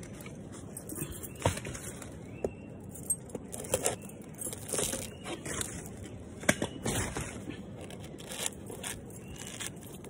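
Fibrous husk of a sprouted coconut being pulled and torn off by hand: irregular crackling rips and scrapes with a few sharper snaps.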